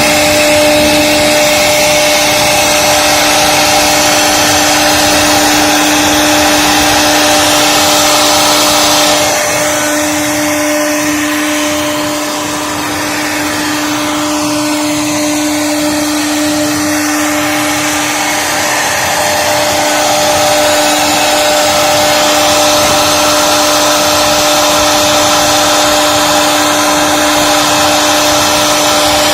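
A CNC carving router's spindle running with a steady whine over the hissing noise of the cut. The hiss thins out about nine seconds in, then builds back up over the last third.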